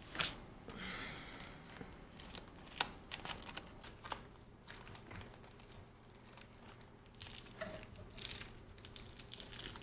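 Clothing rustling and a plastic wrapper crinkling as someone rummages in a jeans pocket and pulls out a packaged condom, with scattered small clicks and knocks.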